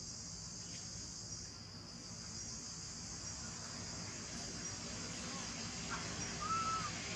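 Steady high-pitched chorus of forest insects. Near the end, one short call rises and falls in pitch.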